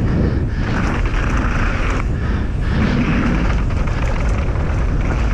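Mountain bike riding fast down a bikepark trail: wind buffeting the helmet-mounted action camera's microphone over the rumble and rattle of the tyres and bike on the rough track.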